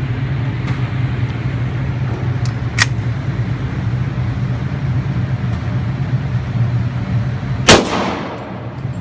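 A single loud gunshot about three-quarters of the way in, with a short ringing tail, over a steady low hum. A smaller sharp click sounds about three seconds in.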